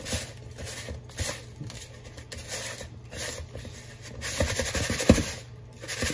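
A hand mixing brown sugar and cinnamon in a plastic bowl: the sugar scratches and rustles against the bowl, getting louder and busier, with a few sharp ticks, in the last two seconds.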